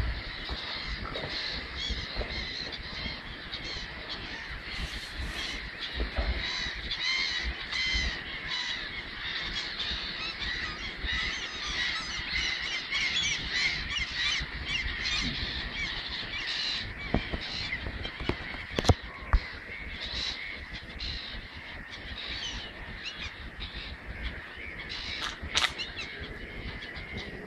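A flock of gulls calling continuously, many cries overlapping. Two sharp clicks stand out about two-thirds of the way through.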